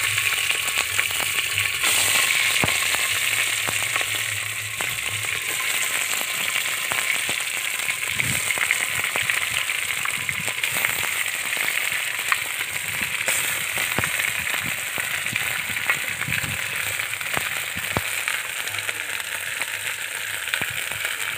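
Chicken pieces frying in hot oil in an earthenware pot, a dense steady sizzle with many scattered pops and crackles. It is loudest in the first few seconds, then settles slightly.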